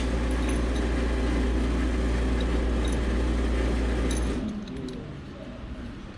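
Pipe-freezing machine for water lines running with a steady low hum, then switched off a little over four seconds in, its hum cutting out and the noise falling away.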